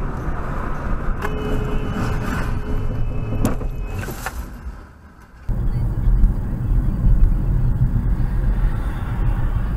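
Road and engine noise of a moving car, heard from inside through a dashcam. About a second in, a steady high tone sounds for about two seconds, and a couple of sharp clicks follow. After a cut, a heavier low rumble of road noise takes over.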